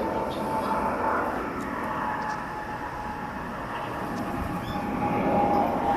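Steady drone of a distant engine over outdoor background noise, with one faint held tone slowly falling in pitch.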